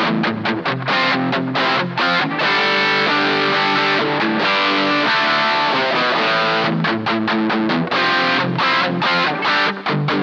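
Electric guitar, a Les Paul's humbuckers, played through a Pedrone Slim Pegasus tube amplifier recorded direct, playing overdriven chords. Short choppy chord stabs open and close the passage, with longer ringing chords in the middle.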